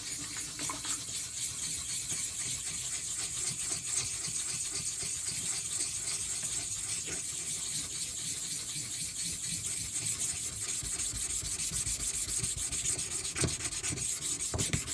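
A small silicon carbide block scrubbed rapidly back and forth over the face of a Venev bonded diamond sharpening stone, a steady gritty rasping. It is cleaning off the stone's loading of swarf.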